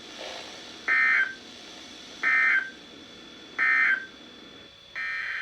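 Emergency Alert System end-of-message code: three identical short bursts of shrill digital data squawk, evenly spaced, marking the end of the tornado warning. A longer burst of the same data sound begins about five seconds in.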